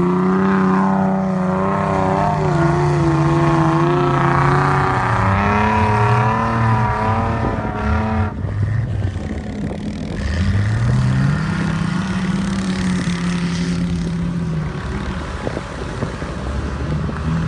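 Off-road 4x4 engines revving hard under load up a sand slope: the revs are held high and waver, then there is an abrupt change about 8 s in. After it an engine note drops, climbs again and is held, drops, and starts to rise again near the end.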